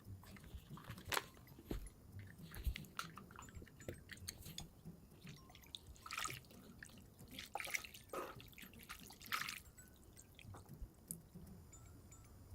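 Faint, close-up mukbang eating sounds played at double speed: wet chewing and mouth smacks, with scattered sharp clicks.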